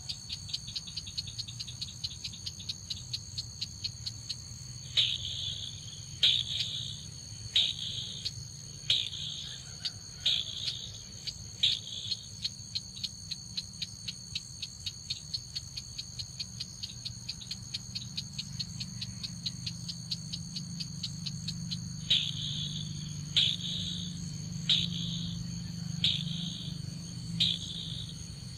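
Crake calls: a fast run of sharp ticking notes, with louder short calls about every second and a half for a while, stopping, then starting again past the middle. Under them is a steady high insect drone.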